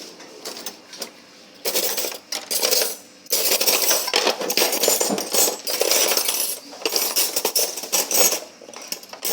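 Metal spoons and steel dishes clattering and clinking, a dense run of rapid metallic knocks that starts about two seconds in.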